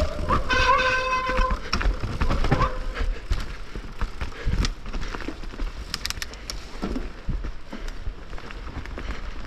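Downhill mountain bike rattling and clattering over rough trail, with tyres on dirt and many sharp knocks from the bike. A brief high squeal in the first second and a half.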